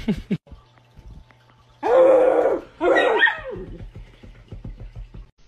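A pet's vocal calls on a bed: two loud drawn-out cries, one about two seconds in and a shorter one just after, with a brief noise of movement at the start.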